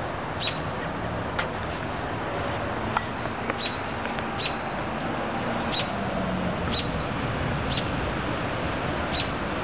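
A bird gives short, high chirps about once a second over a steady rush of wind ahead of a thunderstorm.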